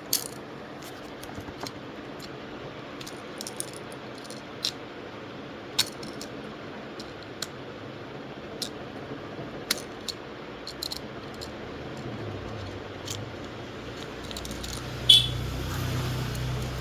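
Scattered small clicks and taps of parts and tools as a Poco X3 smartphone is reassembled after an audio IC replacement, over a steady faint hum. A sharper click comes about fifteen seconds in, and a lower hum joins near the end.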